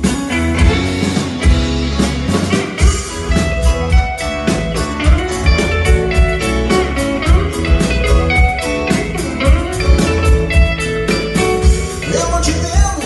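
A rock band playing an instrumental passage between sung verses: drums keep a steady beat under bass, and a guitar plays a lead line with bent notes.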